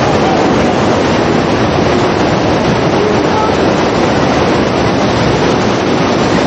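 FlowRider surf simulator's pumped sheet of water rushing steadily up and over the ride surface, a loud continuous roar of water.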